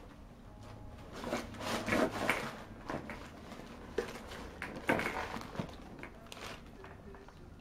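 Crumpled brown wrapping paper rustling and crinkling as a cat digs and shuffles through it inside a cardboard box. It comes in irregular bursts, loudest about two seconds in and again about five seconds in.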